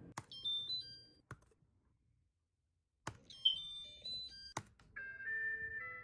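Refrigerator control-panel beeps: short electronic tones hopping up and down in pitch in quick melodic runs. Each run starts with a sharp click, and a silent gap of about a second and a half breaks it up. Near the end a lower stepping tune takes over.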